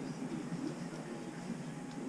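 Quiet shop ambience: a faint, steady low murmur with a few light ticks.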